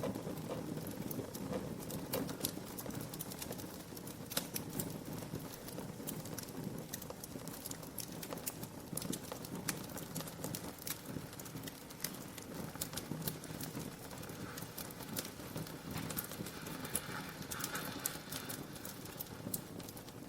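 Wood fire crackling, with irregular sharp pops and snaps over a steady low rush of the flames.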